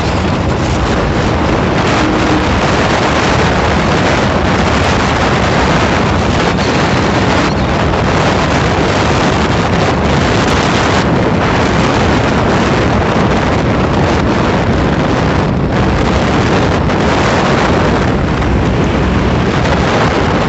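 Loud, steady wind rushing over the microphone of a phone carried on a moving two-wheeler at highway speed, mixed with road and engine noise.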